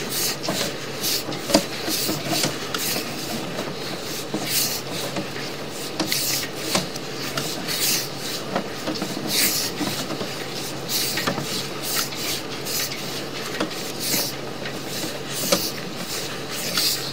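Sewer inspection camera's push cable being fed further down the pipe, with irregular scraping and rubbing strokes, over a steady low hum.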